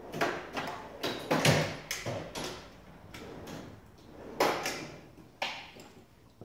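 A run of short knocks, scrapes and rustles of objects being handled: a cluster in the first two and a half seconds, loudest about a second and a half in, then another loud knock near four and a half seconds and a last one about a second later.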